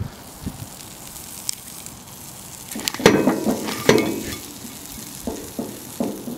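Grilled cheese sandwich still sizzling in a cast iron skillet just off the fire, with a spatula scraping and knocking against the pan as it slides under the sandwich. The scraping is loudest about three to four seconds in, followed by a few sharp knocks near the end.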